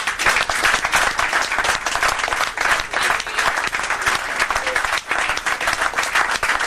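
A room full of people applauding and cheering, with steady clapping throughout and a few voices calling out.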